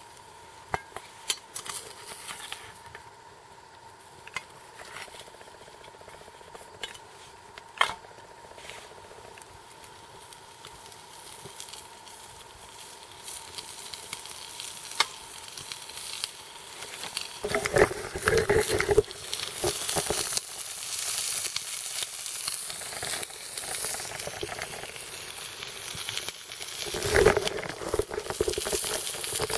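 Food sizzling in a pan over an alcohol stove. There are a few sharp clicks in the first eight seconds, and the sizzle grows louder through the second half, with bursts of stirring and scraping about 18 and 27 seconds in.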